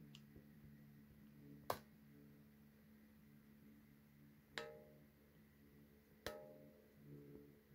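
Near silence over a faint steady low hum, broken by three sharp taps or clicks, the second and third ringing briefly.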